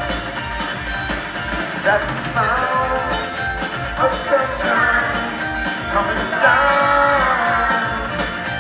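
A live band playing an upbeat song with guitar and a steady beat. Sung melody comes in over it from about two seconds in.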